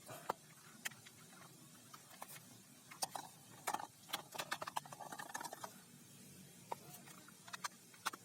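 Plastic toy guns being handled: scattered, irregular light clicks and knocks.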